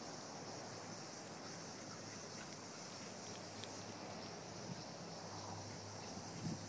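Faint, steady outdoor background noise: an even hiss with a brighter high band and a few light ticks, with no distinct sound from the distant dogs.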